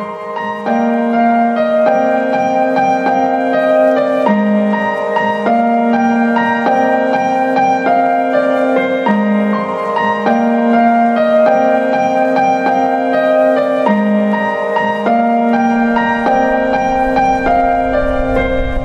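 Background music: a short melody of held notes repeating over a bass line, with a deep low part coming in near the end.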